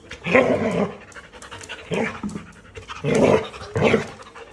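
A frightened dog panting, coming in four loud breathy bursts spread over the few seconds.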